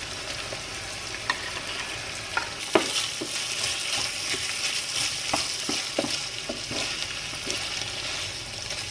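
Minced turkey sizzling steadily in a frying pan as it is stirred with a wooden spatula, with scattered light knocks and scrapes of the utensil against the pan.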